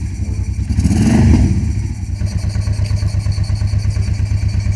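Honda Transalp V-twin engine running on a freshly fitted secondhand carburetor. The throttle is blipped once about a second in, and the engine then settles back to a steady, even idle without spitting.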